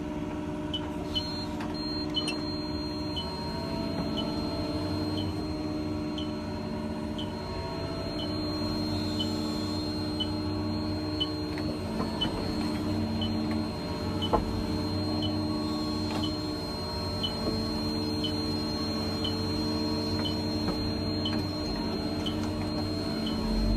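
Excavator diesel engine running steadily, heard from inside the cab, with a short high beep repeating about once a second. A faint steady high whine sits under it, and there is an odd knock from the machine.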